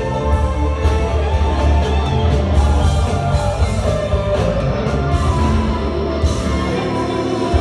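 Live blues band playing a loud jam: electric guitars over bass and drums, with strong, steady low end.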